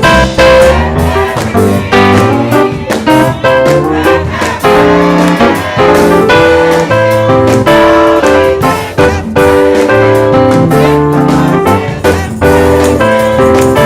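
Instrumental music: piano or keyboard playing chords and melody over a bass line, with many sharp note attacks.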